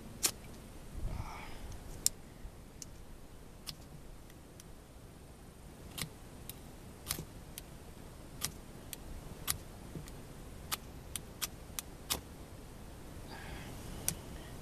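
Ferro rod struck with a steel edge over moss tinder: sharp metal-on-metal scrapes, about a dozen at irregular intervals.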